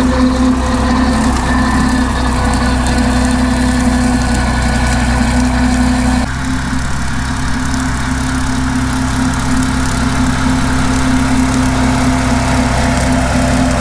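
Ford 8N tractor's four-cylinder flathead engine running at a steady working speed, driving a brush hog rotary mower through dry grass. The sound changes abruptly and drops a little in level about six seconds in.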